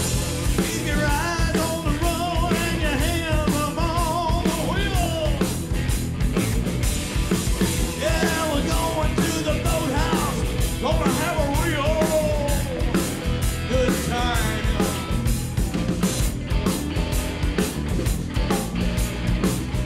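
Live rock band playing: drum kit keeping a steady beat under electric bass and electric guitar, with a wavering, bending lead melody over the top that comes in twice.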